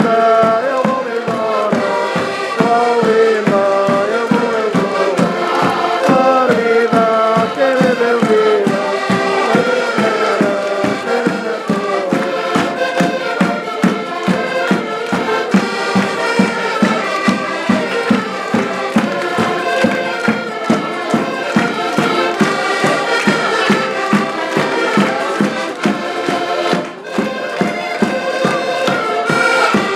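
Portuguese folk music played live on accordions and a big bass drum, the drum keeping a steady beat, with voices singing together mostly in the first third.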